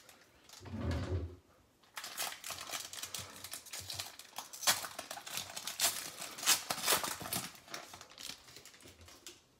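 Foil trading-card pack wrapper crinkling as it is torn open by hand and the cards are slid out, a busy run of crackles and rustles for several seconds.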